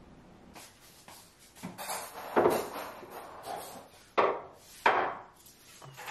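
Knocks and clatter of a table being set: dishes and cutlery put down on a wooden dining table, with three louder knocks a little past halfway.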